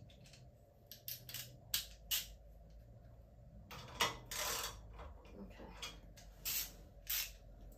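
Small metal clicks, taps and scrapes from a tiny wood stove's air-intake cover and its fitting being worked loose by hand; the cover is on too tight to open and close. Scattered clicks come first, then longer scraping sounds about four seconds in and again near the end.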